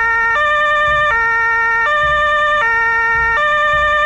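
Fire truck's German two-tone siren (Martinshorn) sounding, alternating between a low and a higher note about every three quarters of a second, then cutting off suddenly near the end.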